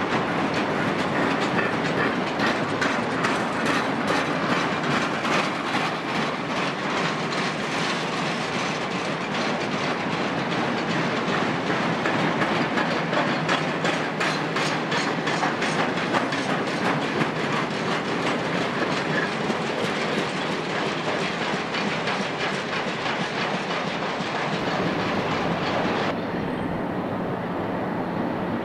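Loaded steel-carrying freight wagons rolling past, their wheels clicking steadily over the rail joints. About two seconds before the end the sound cuts to a quieter, more distant train.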